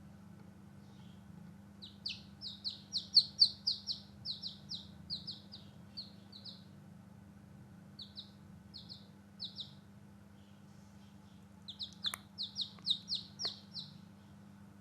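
Newborn chicks peeping: short, high peeps that fall in pitch, coming in quick runs with pauses between them. A couple of faint clicks come near the end.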